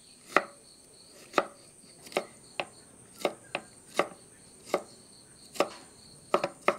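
Kitchen knife chopping stacked slices of peeled tender bamboo shoot into small cubes on a wooden board: about ten sharp, unevenly spaced knocks of the blade against the board.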